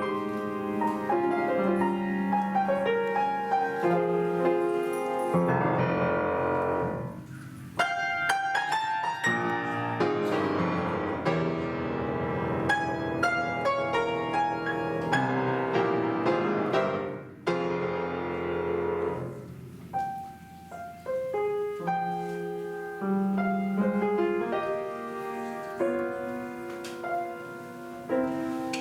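An instrumental ensemble playing a czarda, with piano prominent. Fast runs of notes fill the middle, with slower held notes before and after.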